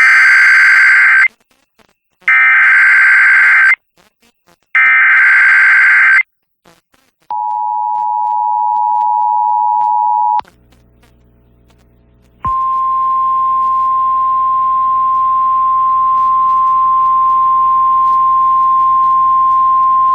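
Emergency Alert System activation on an FM station: three short bursts of SAME header data, a rasping digital screech, then the two-tone EAS attention signal for about three seconds. After a short gap comes a single steady 1050 Hz NOAA Weather Radio warning tone with a low hum under it, heralding a National Weather Service flash flood warning.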